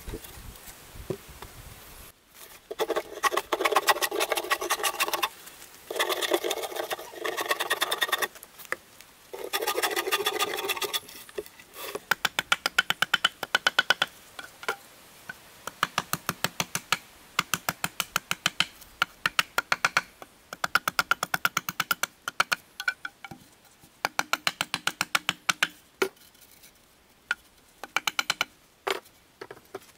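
Cordless drill boring into a wooden pole in three spells of a few seconds each. Then quick, repeated hatchet strokes on a pole, several a second, in runs with short pauses.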